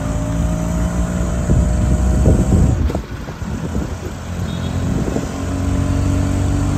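Auto-rickshaw engine running with road noise from inside the moving vehicle. It eases off for a moment about three seconds in, then picks up again.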